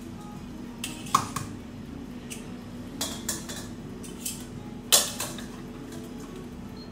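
Kitchen clatter: light clinks and taps as soft-boiled hot-spring eggs are cracked open over small bowls and steel tongs work noodles in a steel pan. The sharpest clink comes about five seconds in, with another just after one second, over a steady low hum.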